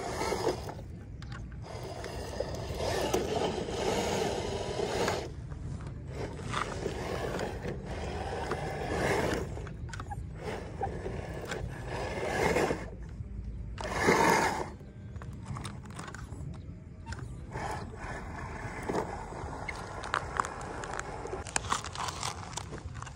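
Radio-controlled ZP1007 scale truck crawling over loose rocks and gravel: its motor and gears whir in uneven bursts as the throttle is worked, with the tyres scraping and crunching on the stones. The loudest burst comes a little past halfway.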